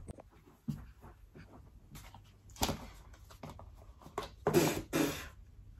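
A few short scratchy rustles of a stiff hand brush against carpet, the loudest near the end.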